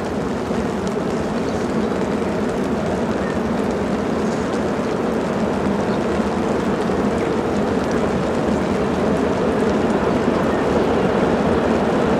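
NZR Ka class 4-8-4 steam locomotive No. 942 working hard, its exhaust a dense continuous chuffing that grows slowly louder as the engine approaches.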